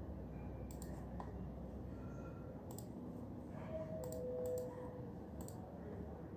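Computer keyboard keys pressed now and then: a handful of scattered clicks, some in quick pairs, over a steady low office room hum.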